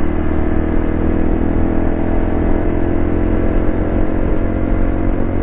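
Honda JA45 Cross Cub 110's air-cooled single-cylinder four-stroke engine with a Yoshimura aftermarket muffler, running at a steady cruise on the road. Its exhaust note holds an even pitch over a heavy low rush of riding wind.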